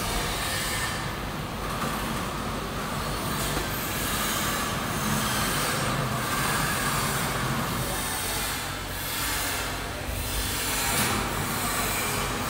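Detergent powder vertical packing machine running: a steady mechanical noise, its higher part dipping and returning every second or two.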